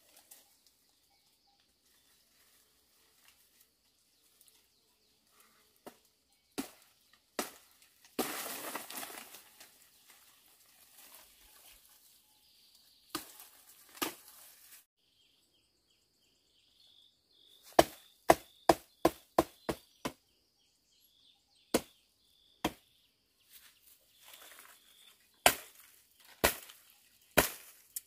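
Knife chopping through branches and brush: single sharp strokes, then a quick run of about six chops in two seconds, with a stretch of leaves and twigs rustling between them.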